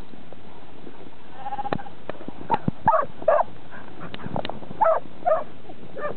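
Lambs in a flock bleating: about eight short bleats spread through the few seconds, one longer held bleat about a second and a half in, and a few sharp clicks between them.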